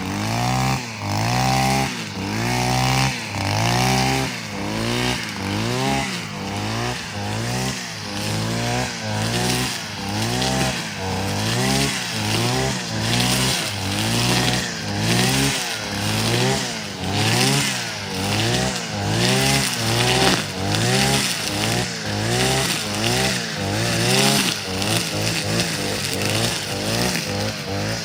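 Kamrad 52cc two-stroke brush cutter engine revving up and dropping back over and over, about once a second, as the throttle is repeatedly opened and released.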